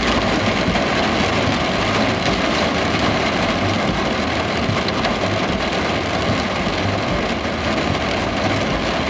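Heavy rain falling steadily on a car's roof and windscreen, heard from inside the car, with a low engine rumble underneath.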